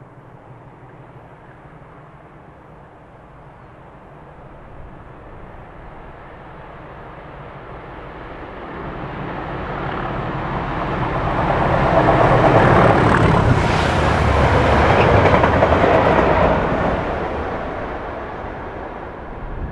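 Diesel-hauled railhead treatment train approaching and passing close by: a faint distant rumble builds into loud engine and wheel noise about two-thirds of the way through, then fades as the train goes away.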